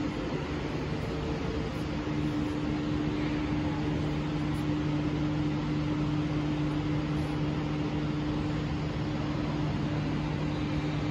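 Steady mechanical hum with two constant tones over an even hiss, like a fan running.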